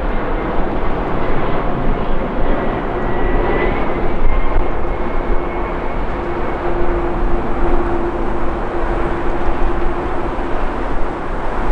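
Twin jet engines of a Boeing 767 airliner on final approach, a loud steady rushing rumble. A steady hum comes in about three seconds in, with a fainter high whine above it for a few seconds.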